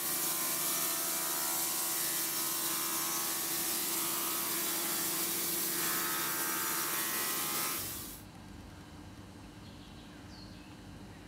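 Wood-Mizer bandsaw sawmill sawing through a log: a loud, steady hiss of the blade in the cut over a steady hum, stopping abruptly about eight seconds in. After that only a quieter background with a few faint bird calls.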